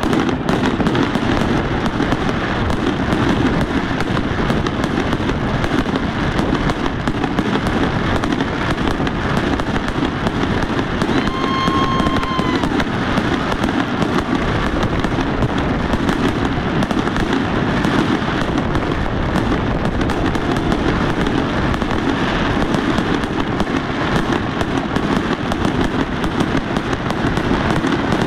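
Fireworks display: a continuous, dense barrage of aerial shells bursting and crackling, with a short whistle about twelve seconds in.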